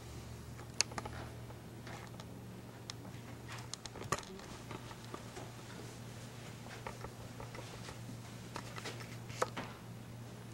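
Quiet room tone with a steady low hum and scattered faint clicks and taps.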